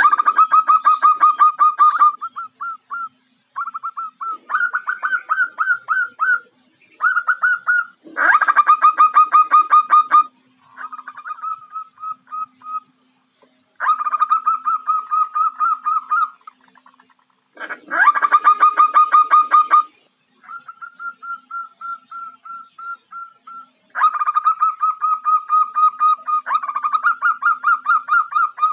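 Female zebra dove (perkutut) calling: bout after bout of rapid staccato notes, each run lasting one to three seconds, with short pauses between. Some bouts are louder and fuller than others. It is the female's call, used to lure males.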